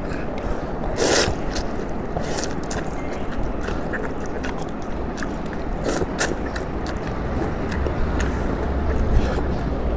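Close-miked eating of beef noodles: two short loud slurps, about a second in and about six seconds in, with chewing and small wet mouth clicks between them.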